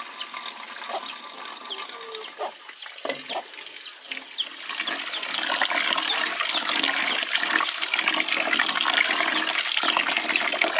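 Tap water running into an aluminium pot of rice while it is washed by hand, the water rushing louder from about four seconds in. Birds call a few times in the first few seconds.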